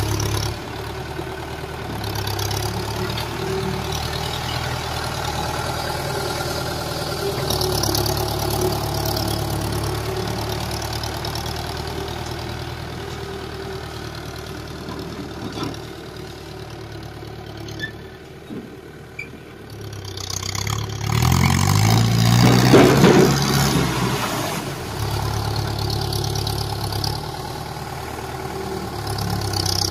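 Tractor diesel engine running steadily while towing a trailer. About 21 seconds in it revs up loudly, its pitch rising, then drops back to a steady run.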